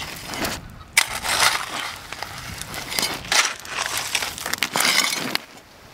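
Small metal shovel scraping and scooping coarse beach gravel and stones, several gritty strokes, as the gravel is heaped over a cloth-covered bundle on hot coals to bury it for cooking.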